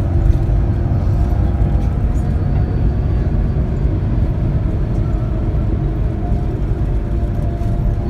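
Steady low rumble of road and engine noise inside a moving bus, with a faint engine hum.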